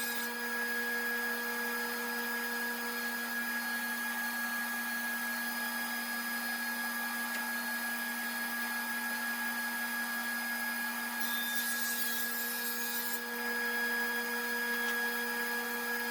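A shop power tool's electric motor running steadily with a constant hum and whine, and a brief extra hiss about eleven seconds in.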